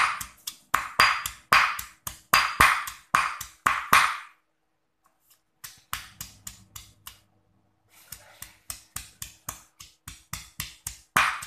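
Stone pestle pounding a wet spice paste of fresh turmeric, shallots and chilies in a stone mortar: rhythmic dull strikes, about three a second. The pounding pauses for a couple of seconds about four seconds in, then comes back softer before growing loud again near the end.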